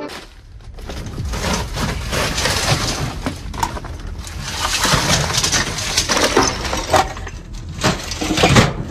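Junk and building debris being shifted by hand: metal frames, boards and sheeting clattering and scraping, with many sharp knocks, a few louder ones near the end.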